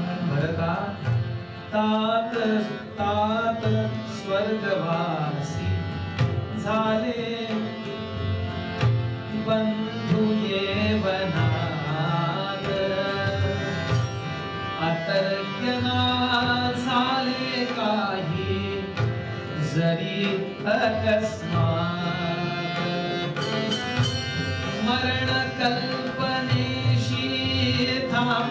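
Male voice singing a devotional song, accompanied by harmonium and tabla.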